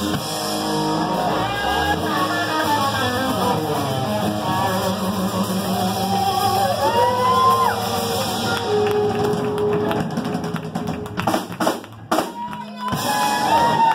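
Live rock band: a Telecaster-style electric guitar plays lead lines with string bends and vibrato over drums and cymbals, with a few sharp drum hits and a brief drop in level near the end.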